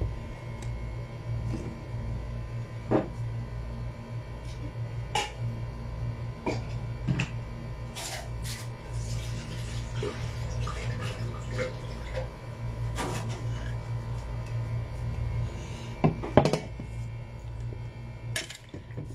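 Green mangoes being washed by hand in a metal pot of water: splashing and sloshing, with scattered knocks of fruit and hands against the pot. The loudest knocks come near the end.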